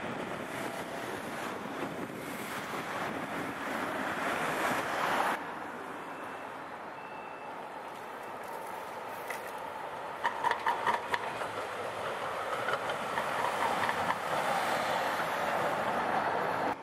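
City street traffic with trams running by on the rails: a steady rush of tyres and motors that changes abruptly about five seconds in, with a quick run of sharp clacks about ten seconds in.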